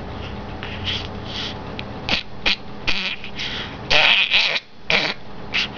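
A string of short, breathy, pitchless deliberate coughs, the loudest cluster about four seconds in.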